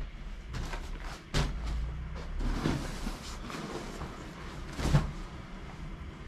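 Handling noises: several knocks and bumps with some rustling as objects are moved about, the loudest bump about five seconds in, over a steady low hum.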